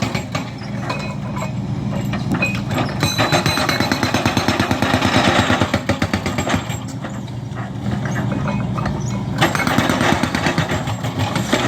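Heavy diesel construction machinery running on a demolition site, with long runs of rapid clattering, hammering impacts over a steady engine hum. The hammering is strongest in the middle and comes back near the end.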